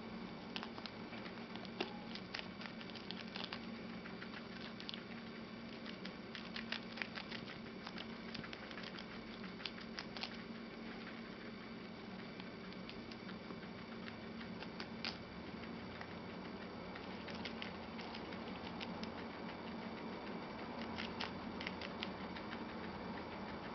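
Guinea pig chewing a crisp lettuce leaf: quick, crisp crunching clicks in irregular clusters, over a steady low hum.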